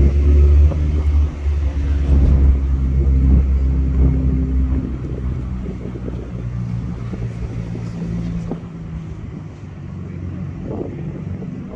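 A car's engine and road noise heard from inside the moving car: a deep, steady engine hum, loudest for the first few seconds and then easing to a lower rumble.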